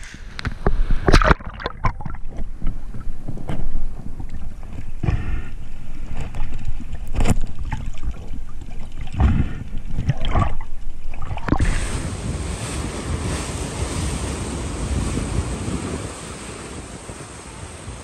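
Muffled splashing and sloshing of seawater around a waterproof action camera as a diver swims at the surface and dips under, with scattered knocks and splashes. About two-thirds through it cuts to a steady wash of surf and wind on the microphone.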